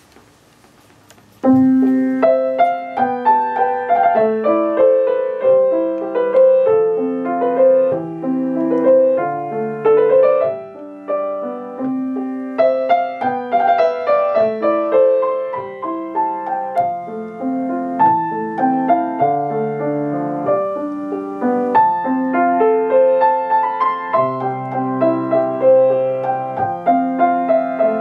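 Mason & Hamlin grand piano played solo, a melodic piece with a moving melody over held bass notes and chords, starting about a second and a half in.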